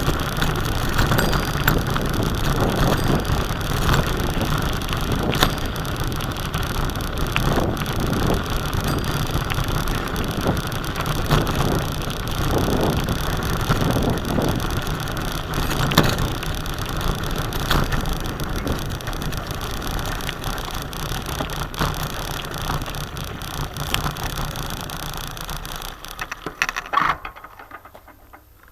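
Bicycle jolting along a rough dirt track: steady rattling and tyre noise with frequent knocks over the bumps. It fades out sharply near the end.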